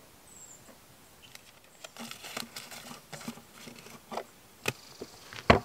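Rustling and scratching of a paper wilderness permit being filled out and handled at a wooden trailhead permit box. The sounds start about two seconds in, with a few light clicks and a sharp knock on the box near the end.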